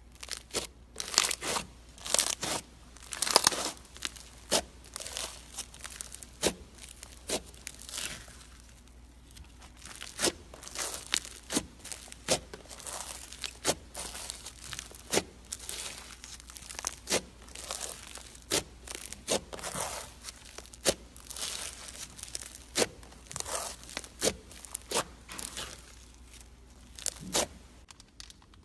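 Floam slime, slime packed with tiny foam beads, being squeezed, folded and stretched by hand, giving an irregular run of crunchy crackles and pops as the beads are pressed together.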